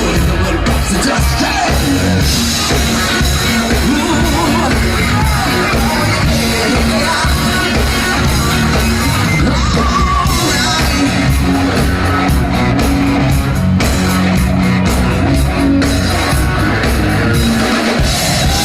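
Live rock band playing loudly with a steady beat, amplified in a large hall, with singing, shouts from the crowd, and a bass guitar playing held notes.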